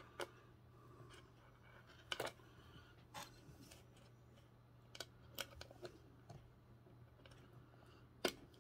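Faint, scattered clicks and light taps of small carp-rig tackle being handled at a table, over a low steady hum.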